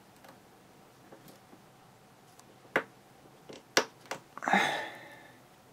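Small metal lock parts handled by fingers while a Sargent lock cylinder is taken apart: a few sharp, separate clicks, then a short, louder metallic clatter with a faint ring near the end.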